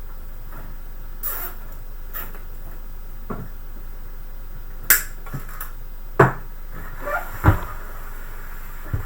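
Scattered rustles and sharp plastic clicks as SATA cables are handled and routed inside a PC case, the loudest clicks about five, six and seven and a half seconds in.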